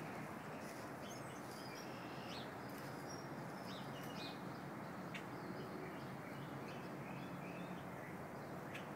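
Small songbirds chirping and twittering in short, scattered high notes over steady background noise.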